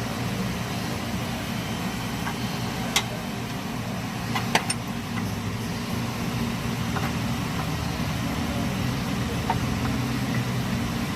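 Steady low mechanical hum, like an idling engine or running machinery, with a few sharp clicks. The loudest click is about four and a half seconds in.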